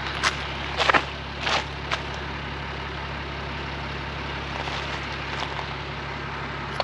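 A truck's diesel engine idling steadily in the background, with a few footsteps crunching on gravel in the first two seconds.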